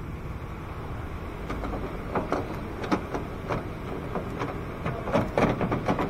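Outer door handle of a 2002 Toyota Tacoma being worked out of the door: a run of light clicks and knocks as the handle and its clips shift against the door, over a steady low background rumble. The clicks come in two clusters, about two seconds in and again near the end.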